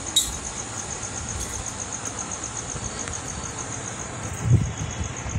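A cricket chirping steadily, a high, even pulsing of about eight or nine pulses a second. A short click comes just after the start and a dull low thump about four and a half seconds in.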